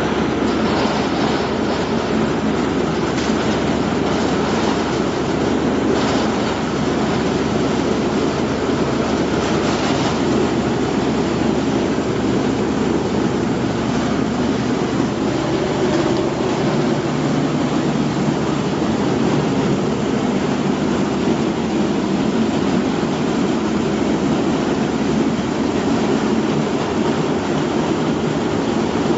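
Potato washing and peeling machine running, a steady, loud mechanical noise with a few faint clicks in the first ten seconds.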